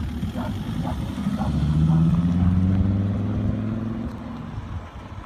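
Volvo V70 2.4 D5's five-cylinder turbodiesel through a custom stainless steel exhaust, accelerating away. The exhaust note rises in pitch and level about a second in, is loudest around two seconds, then fades as the car draws off.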